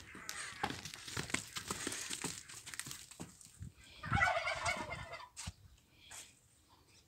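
A domestic turkey gobbling once, a rapid bubbling call of about a second, around four seconds in, amid rustling and clicking.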